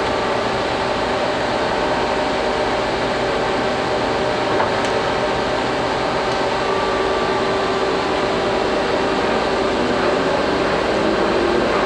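Geminis GE-1000-A gap bed engine lathe running steadily at a higher spindle speed: an even hum and whir from the headstock gearing, with several steady tones. The gearing sounds healthy.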